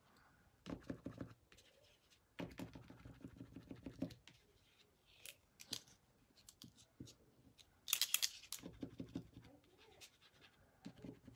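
Paint pen tapping and scratching against a paper plate in several short runs of quick clicks. The pen is not flowing right and is acting up.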